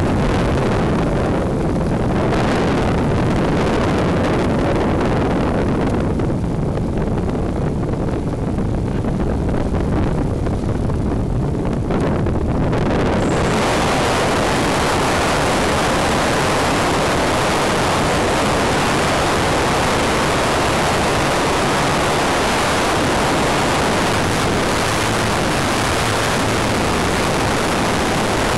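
Rushing airflow and motor noise on the onboard camera of a Wot 4 RC model plane in flight, a loud steady rush. The high hiss thins out for several seconds, then comes back strongly about 13 seconds in and holds.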